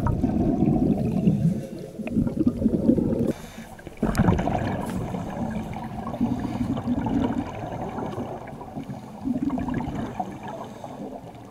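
Scuba divers' exhaled regulator bubbles gurgling, heard muffled through an underwater camera housing, in bursts with short lulls between.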